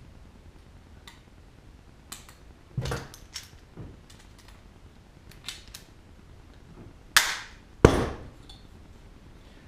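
Hand rivet gun pulling a small blind (pop) rivet through an aluminium wing-rib bracket: a few light clicks of the tool, then two loud cracks near the end, the second a sharp snap as the rivet's mandrel breaks off.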